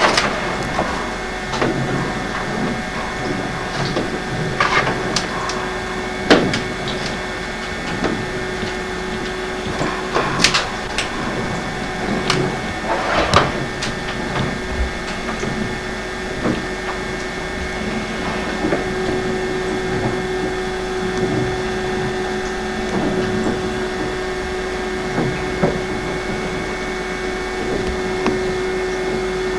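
Toy electric train running: a small motor whirring steadily, with scattered clicks and knocks along the way.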